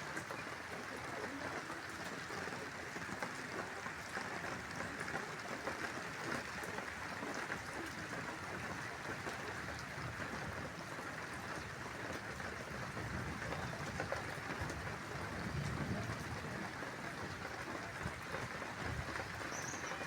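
Steady rain falling, an even hiss full of small drop ticks, with a brief low swell about three quarters of the way through.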